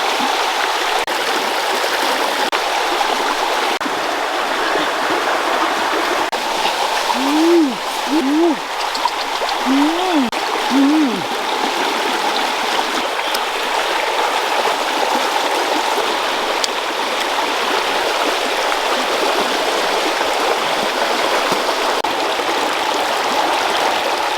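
Stream water rushing steadily. About seven to eleven seconds in, four short calls sound over it, each rising and then falling in pitch.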